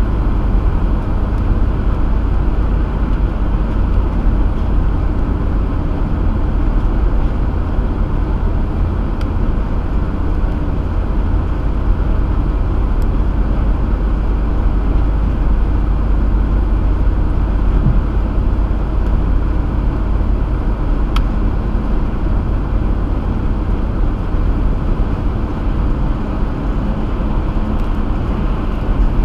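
Car driving at highway speed, heard from inside the cabin: steady road noise with a strong low rumble.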